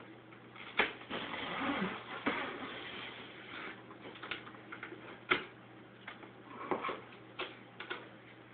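Packaging being handled and pulled apart: rustling and scraping, with scattered sharp knocks and clicks. The rustling is strongest for a couple of seconds starting about a second in, and the sharpest knock comes about five seconds in.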